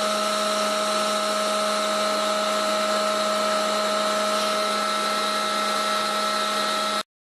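Welding: a steady hiss with a constant hum, with no change in pitch, cutting off abruptly about seven seconds in.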